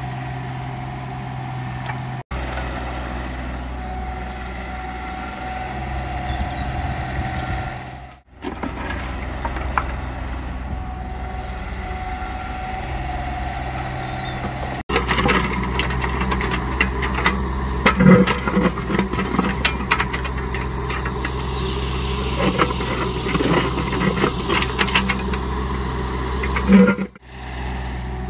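Diesel engines of a JCB mini excavator and a site dumper running steadily, with a steady hydraulic whine and several abrupt breaks in the sound. From about halfway there is rattling and clanking of the bucket working soil and stones, with a couple of louder knocks.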